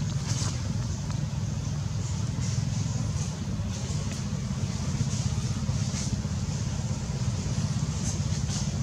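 Steady low rumble with a faint high hiss over it and a few light ticks.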